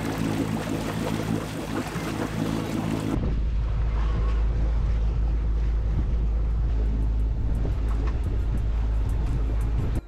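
Boat engine running steadily under way, with water rushing in the wake. About three seconds in the sound changes to mostly a heavy, low wind rumble on the microphone.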